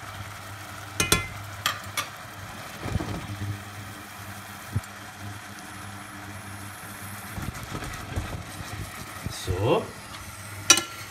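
A stainless saucepan of sliced mushrooms simmering in beef stock, over a steady low hum, with a couple of clinks of a spoon against the pan about a second in.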